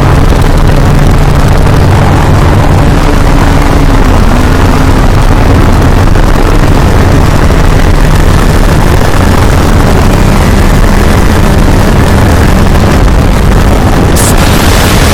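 Loud, steady rumbling roar, dense noise with a low hum beneath it, presented as the sound of a moon of Saturn. The hiss grows brighter near the end.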